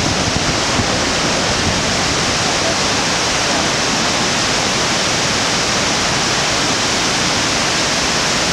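Iguazu Falls pouring into its gorge: a loud, steady rush of falling water.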